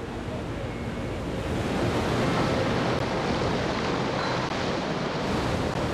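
Steady rushing of wind and sea, swelling about two seconds in.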